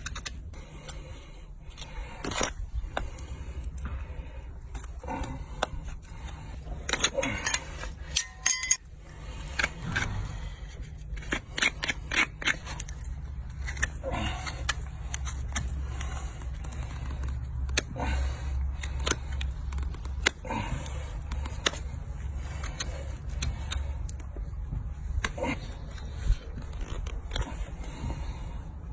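Donkey hoof being trimmed with metal tools: a run of irregular sharp clicks, cuts and scrapes against the hoof horn, with a steady low rumble underneath.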